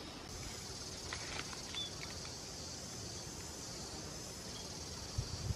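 Steady high-pitched insect chorus in the background, with a few light crackles and a brief bird chirp in the first couple of seconds. Soft footstep thuds near the end.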